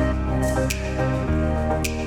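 Background music: mellow new-age-style music with sustained chords, a bass line that changes note about once a second, and a light percussive tick at a steady beat.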